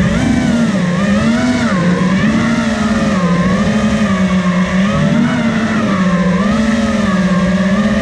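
FPV quadcopter's electric motors and propellers whining, the pitch rising and falling continually as the throttle changes, heard close up from the drone's onboard camera.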